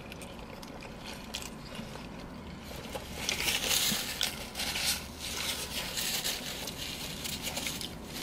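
Paper napkins and burger wrappers rustling and crinkling, loudest from about three seconds in to about five seconds in, with chewing and biting into burgers.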